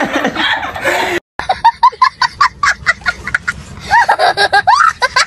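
Laughter from a man and a child that cuts off abruptly about a second in; after a brief silence a young boy laughs hard in rapid high-pitched bursts, breaking into longer rising cries of laughter near the end.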